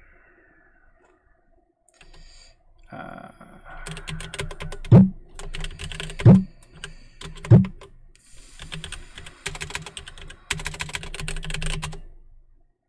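Typing on a computer keyboard: rapid key clicks in bursts, starting a few seconds in, with three louder thumps among them.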